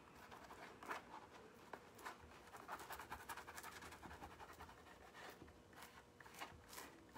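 Faint, irregular scratching and rubbing of fingertips pressing a rub-on transfer down onto a textured lampshade, working out trapped air bubbles.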